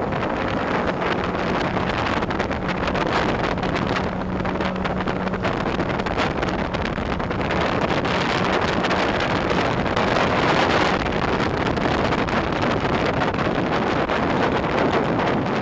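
Sea-Doo Speedster jet boat running at speed, heard through heavy wind buffeting on the microphone and rushing water, with a faint steady engine tone in the first few seconds.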